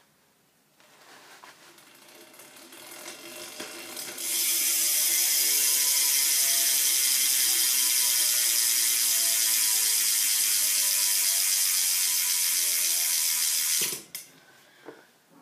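Quando 9-tooth BMX rear hub freewheeling as the rear wheel spins, its pawls ratcheting. Clicking builds over the first few seconds, then becomes a loud, fast buzz about four seconds in that slowly drops in pitch and cuts off suddenly near the end.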